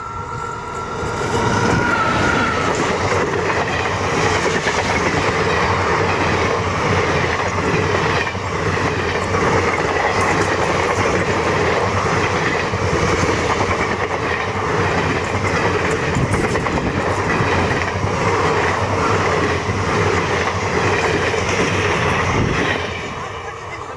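A passenger train hauled by an electric locomotive passes close by at speed: a loud, steady rush of steel wheels on rail with repeated clacks over the rail joints. It builds over the first couple of seconds and falls away near the end as the last coaches go by.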